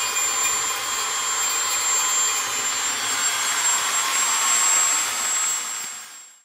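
Loud, steady machine noise with a high whine from a motorized tool running in the room. It fades out about a second before the end.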